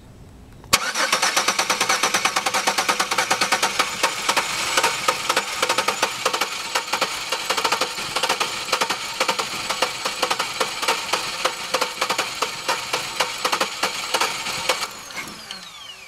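2002 Chevy Venture's 3.4 L V6 cranking on the starter for about fourteen seconds without catching, a no-start with no injector pulse that the mechanic blames on a failed camshaft position sensor. The cranking starts abruptly about a second in and ends near the end with a falling whine as the starter spins down.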